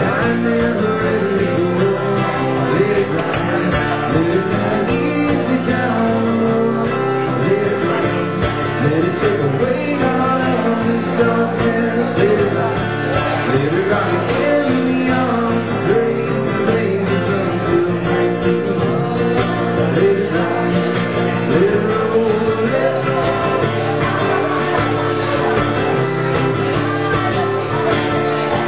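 A man singing with guitar accompaniment in a live acoustic performance, played and sung steadily through the whole stretch.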